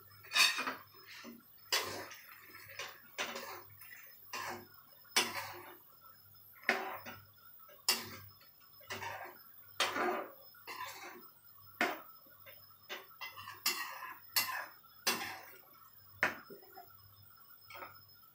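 Metal spoon clinking and scraping against a metal frying pan of curry as it is stirred, a sharp clink about once or twice a second.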